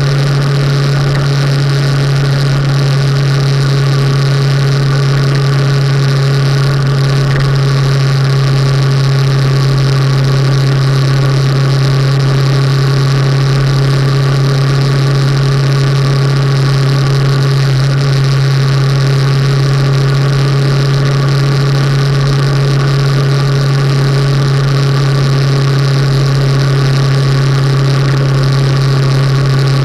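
Motorcycle engine running at a steady cruising speed, heard from a camera mounted on the bike: a constant low drone that holds one pitch throughout, over a steady rush of wind and road noise.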